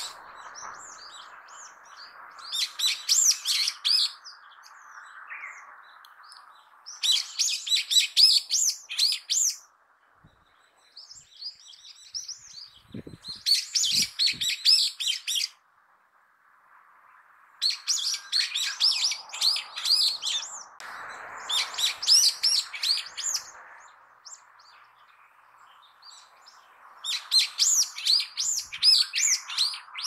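Brown-eared bulbul giving its loud, shrill "hiyo-hiyo" contact calls. The calls come in about six rapid chattering bursts of one to three seconds each, with pauses between them. A faint steady hum runs underneath.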